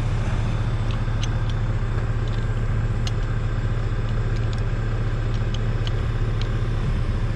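Tractor engine idling steadily, with a few light metallic clinks of a wrench working the lock bolt on the plough's gauge wheel.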